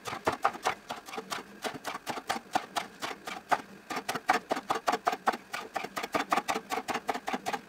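Kitchen knife chopping fresh herbs on a wooden cutting board, the blade knocking on the board in a quick, even rhythm of about six strokes a second.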